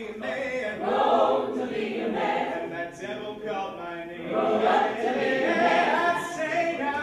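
Coed a cappella group singing in close harmony, mixed men's and women's voices with no instruments.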